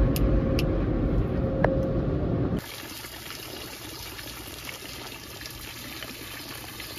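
Automatic car wash spraying the car, heard from inside the cabin as a loud rush of water heavy in the low end. About two and a half seconds in it cuts suddenly to a small courtyard fountain splashing steadily, a quieter, even patter of falling water.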